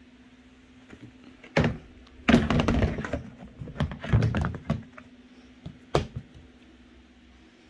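Plastic storage tote lid being set on and pressed down, a series of plastic knocks and clatter with one last sharp knock near the end.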